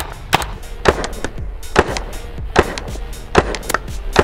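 BT Omega paintball marker firing a string of sharp pops, roughly two shots a second at an uneven pace. Background music plays along with them.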